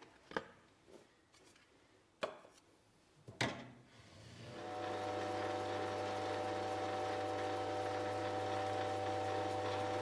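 A few sharp knocks of metal or wooden parts being handled. Then, about four and a half seconds in, a workshop machine's electric motor starts and runs steadily with a low hum and a steady whine.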